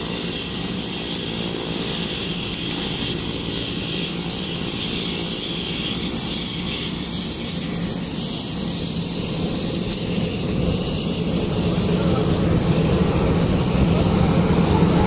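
Aircraft engine running on an airport apron: a steady hum with a high whine, growing louder in the last few seconds.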